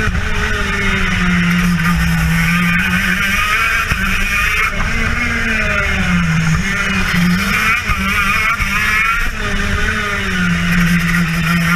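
TM KZ10B 125cc two-stroke shifter kart engine at racing speed, heard from on board the kart, its revs repeatedly dropping and climbing again as the kart brakes for and accelerates out of corners.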